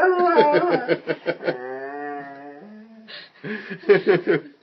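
Dog howling along to the doorbell, one long wavering note that slides up and down and fades out about two and a half seconds in. A person laughs over the start of it, and laughs again near the end.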